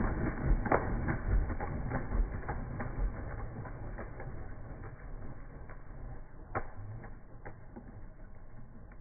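Slowed-down sound of racing pigeons taking off from a release basket: a dense clatter of wingbeats with scattered sharp claps, fading steadily as the birds fly off.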